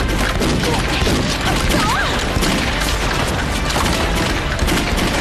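Sustained battle gunfire from rifles, many shots overlapping without a break, with dramatic background music underneath.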